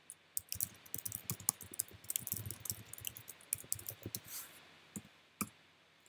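Typing on a computer keyboard: a quick run of keystrokes for about four seconds, then two separate key clicks near the end.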